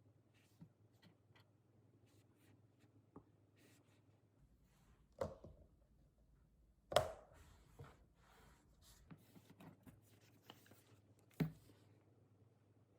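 Light taps and clicks of things being handled, with three louder knocks: one about five seconds in, the loudest about seven seconds in, and one near the end.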